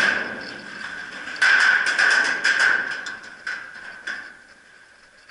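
A rapid string of paintball marker shots, several sharp pops in quick succession, then two more single pops a little later.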